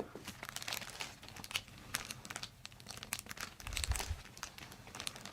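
Crinkling and rustling of the treatment table's cover as the patient moves her head, with a low bump about four seconds in.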